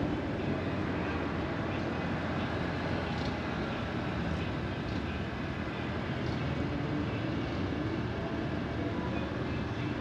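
A car driving: a steady rumble of engine and tyre noise on the road, with a few faint ticks.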